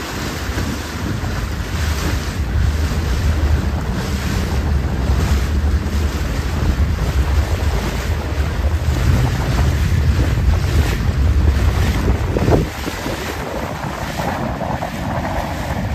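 Wind buffeting the microphone on a boat at sea, over a steady low rumble of boat and water. The wind noise eases somewhat about three-quarters of the way through.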